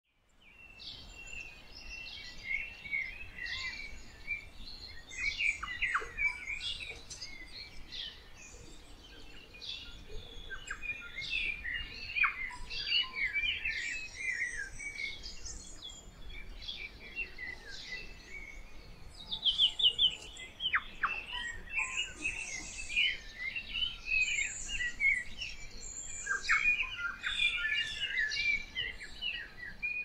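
A chorus of several wild garden birds singing and calling at once, a dense overlapping run of quick high chirps and trills.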